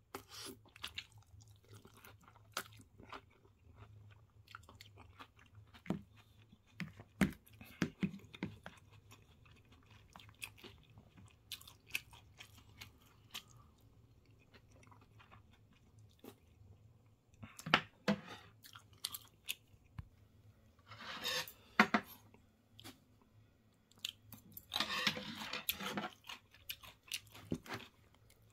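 Close-up chewing and crunching of breaded cheese pork cutlet with curry rice, made up of many small sharp clicks. Two longer, louder stretches of chewing come a little over two-thirds of the way in and again shortly after.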